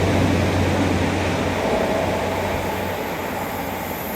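A passing train: a steady rush of noise with a low hum underneath, slowly fading as the train moves away.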